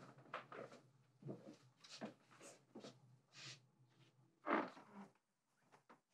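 Faint footsteps with small knocks and rustles from a carried tray, a few soft sounds every second, one louder knock or rub about four and a half seconds in.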